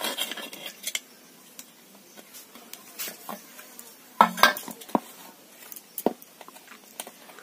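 Cookware and utensils clinking and knocking as cooked cakes are lifted out of the pot one by one, with a louder clatter about four seconds in and single knocks a second and two seconds later.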